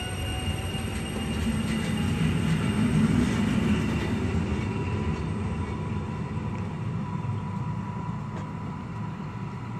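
Electric multiple unit train running past along the platform and moving away, its rumble on the rails swelling to a peak about three seconds in and then slowly fading.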